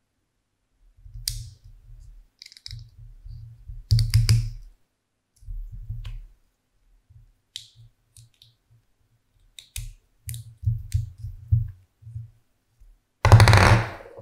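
Wooden pieces of a homemade popsicle-stick beyblade clicking and knocking as its layers are fitted together by hand, with soft low bumps from handling. Near the end comes one loud, brief scraping burst as the top is set spinning on the desk.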